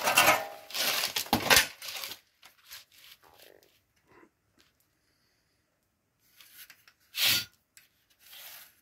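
Cardboard being handled and slid about on a workbench: a couple of seconds of rustling and scraping at the start, then mostly quiet with faint ticks and one short rasping sound about seven seconds in.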